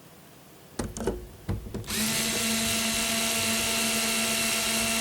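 Electric screwdriver running steadily for about three seconds, driving a screw into the back panel of a fanless NUC case, after a few handling clicks.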